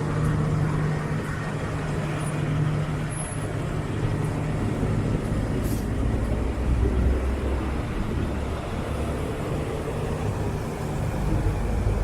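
Large motorhome's engine idling steadily: a continuous low hum, with a deeper rumble growing stronger about halfway through.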